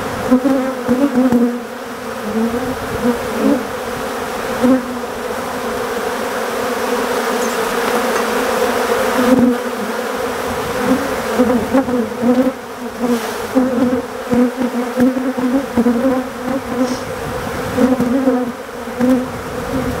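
Loud, steady buzzing of a mass of Africanized honey bees flying around an opened hive, a drone that wavers slightly in pitch as bees pass close by.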